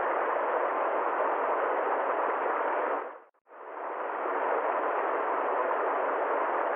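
Steady, even rushing noise with no distinct events. About three seconds in it fades briefly to silence, then fades back up to the same level.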